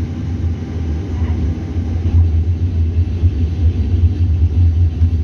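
Tram running along the street, heard from inside the car: a steady low rumble of wheels and motors that grows a little louder about two seconds in.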